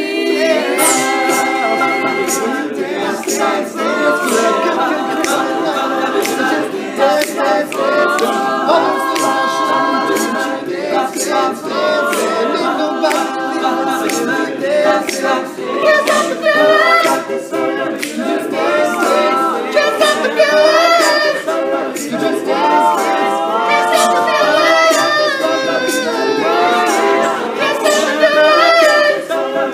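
All-male a cappella group singing a wordless backing part in close harmony, with a steady run of sharp percussive clicks from vocal percussion.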